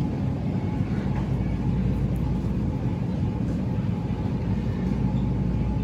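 Steady low rumble of a store's background noise, with a faint steady hum throughout.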